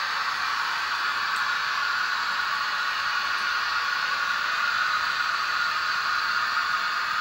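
Model diesel locomotive running slowly along the track: a steady whirring hiss of its electric motor and wheels on the rails.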